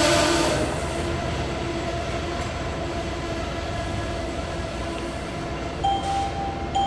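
Amtrak passenger train's Amfleet cars rolling past: a steady rumble of wheels on the rails that eases a little in the first second. A thin steady tone joins near the end.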